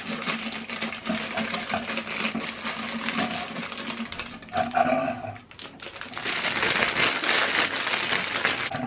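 Toy packaging being torn and rustled open by hand: dense, fast crackling and crinkling in two long stretches, with a short lull about five seconds in.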